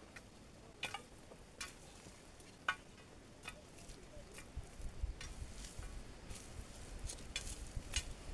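Long-handled digging tools chopping into dry, rooty garden soil: irregular sharp strikes about once a second, with scraping and crackling of dry grass and earth between them. A low rumble joins about halfway.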